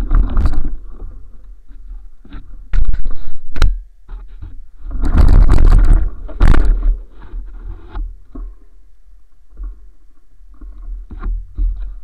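Rumbling, knocking and scraping on an action camera's microphone as the camera is jolted and shaken about. It is loudest about three seconds in and again from about five to seven seconds in.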